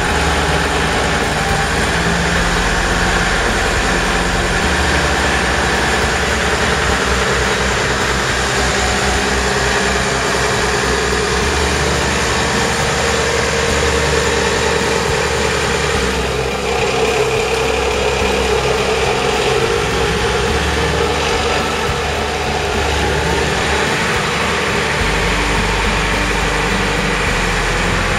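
Large boat-yard forklift's engine running under load as it lifts a rigid inflatable boat clear of the water on its forks and drives off with it. The engine note shifts several times, with changes about five seconds in, around the middle and again near the end.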